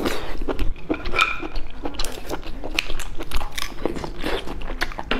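Close-miked wet chewing of boiled sea snail meat: irregular mouth clicks and lip smacks, several a second.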